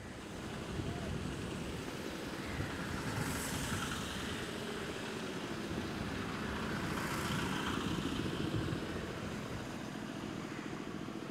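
A motor running steadily with a low rumble, mixed with wind and water noise, with faint voices now and then.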